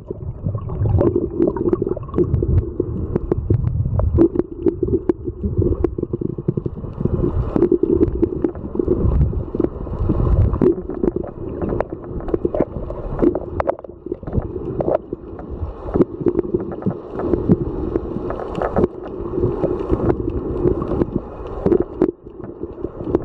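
Muffled underwater noise picked up through a submerged camera's housing: continuous low rumbling and gurgling water with many scattered small clicks and knocks.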